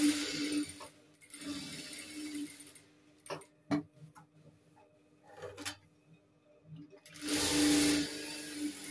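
Industrial sewing machine stitching in short runs, starting and stopping: a run at the start, another about a second and a half in, and the longest and loudest near the end. A couple of sharp clicks fall in the pause around three and a half seconds in.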